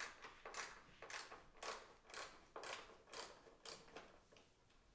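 T25 Torx screwdriver backing out a bumper-mount screw, a faint rasping click on each twist, about two a second, fading out after about four seconds.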